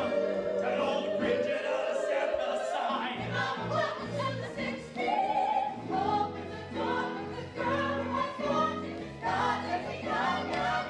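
Musical-theatre show tune: several voices singing over a band accompaniment with a steady bass line.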